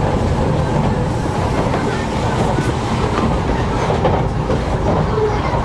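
Cabin noise of a 500 Series Shinkansen running at speed, heard from inside the car: a steady low rumble of the train on the track, with a few faint clicks.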